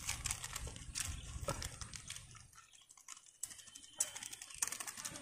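Close-up eating sounds: a run of small clicks, smacks and chewing noises from people eating fish and rice with their hands. It is busiest at first, thins out in the middle, and there is a single louder click about four seconds in.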